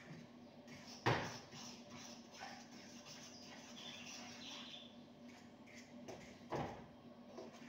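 A metal cooking pot on a gas stove clanking sharply twice, about five seconds apart, with a few lighter knocks, over a faint steady hum.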